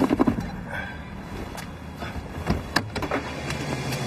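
Car sounds right after a hard stop: a quick rattle of clicks at the start, then several single sharp clicks and knocks over a low steady hum.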